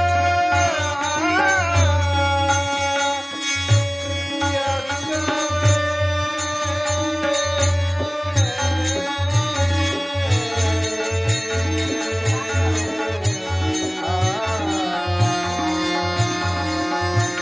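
Marathi devotional bhajan music: a sung melody with bending, ornamented notes over sustained held notes, a steady drum beat, and rhythmic high metallic strokes.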